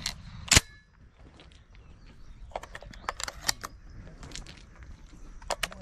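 A shotgun fires once about half a second in, the last of a quick string of shots. Then come scattered quiet clicks and rustles of the gun being handled among dry reeds.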